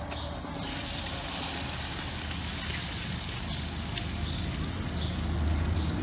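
Egg-battered long beans sizzling as they hit hot oil in a steel wok, a steady hiss that starts about half a second in as the beans go in and grows a little louder near the end as they are stirred with chopsticks.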